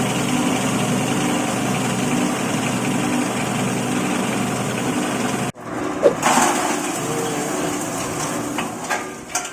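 Stainless-steel dry-bread grinding machine running with a steady motor hum. After an abrupt break about five and a half seconds in, it runs on with sharp clicks and crackles, and it grows quieter near the end.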